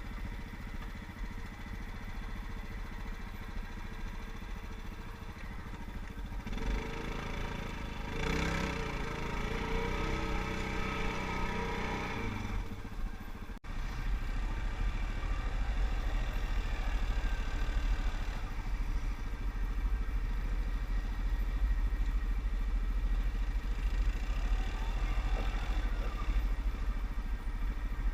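ATV (quad bike) engines running. One revs up louder and falls back again about a quarter to halfway in. After a sudden break just before the middle, a steady deep engine rumble continues.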